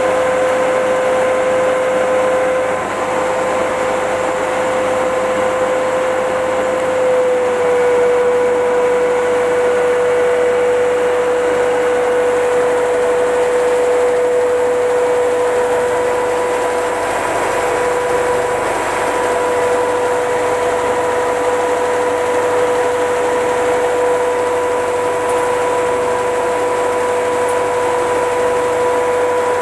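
Belt-driven test rig running steadily: a three-phase electric motor spinning a Mecc Alte 6.5 kVA two-pole generator head at 3000 RPM, with a constant whine over a mechanical hum. The generator is self-excited and lighting a bulb. The whine drops slightly in pitch about seven seconds in.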